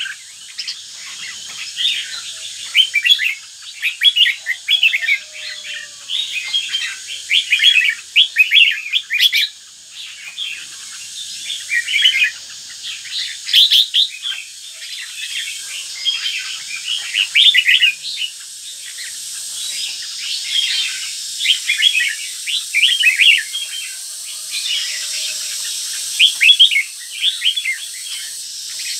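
Caged red-whiskered bulbul singing: bright phrases of quick chirps, repeated with short pauses between them.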